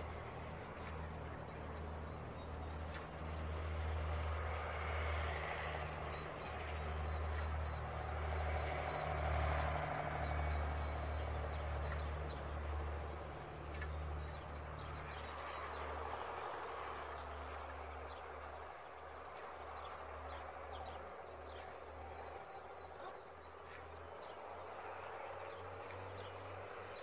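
Rural outdoor ambience: a fluctuating low rumble, strongest in the first half and easing after about fifteen seconds, with faint bird chirps.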